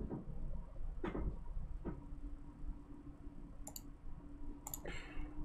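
Faint computer mouse clicks, a couple of sharp ones near the end, over a steady low hum.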